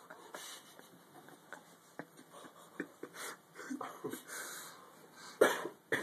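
A man eating with his mouth full: wet chewing clicks and heavy breathing through the nose in short puffs, with a loud short noisy burst about five and a half seconds in and another just before the end.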